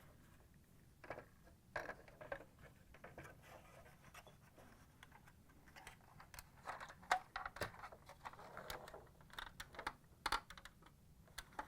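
Faint, scattered clicks and scrapes of hard plastic parts being handled as a washer's interface control unit is fitted into its plastic control panel, busier in the second half.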